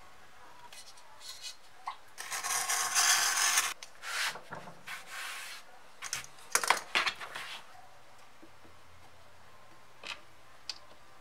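Knife blades cutting through thick 3 mm cowhide leather: a long rasping scraping stroke of about a second and a half, then shorter cutting strokes, and a burst of sharp scratches and clicks a little past halfway.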